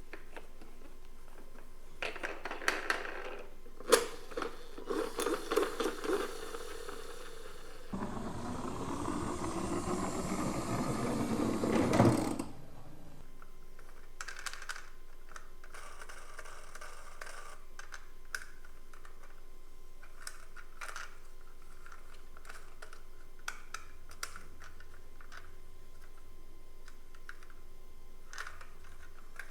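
Small toys being handled: light clicks and rattles. Then a rolling, scraping noise rises in pitch for about four seconds and stops abruptly on a knock. Scattered faint clicks follow.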